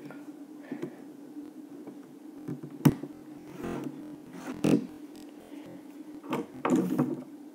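A steady low hum with a few scattered clicks and knocks, and a short breathy sound near the end.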